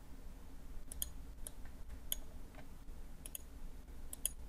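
Faint computer mouse clicks, about five spread over a few seconds, several in quick pairs, over a low steady hum.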